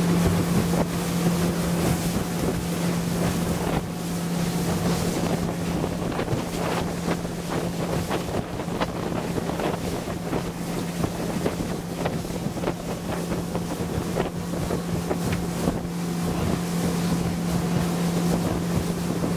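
Small motorboat's engine running steadily at cruising speed, a constant low drone, with wind buffeting the microphone and the rush of water past the hull.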